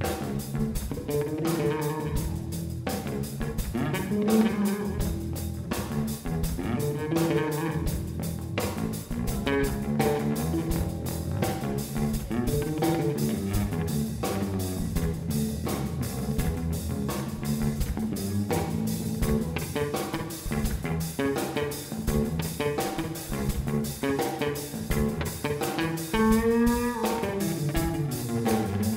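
Live blues band playing electric guitar, bass guitar and drum kit, with regular drum strokes throughout and a bending guitar note near the end.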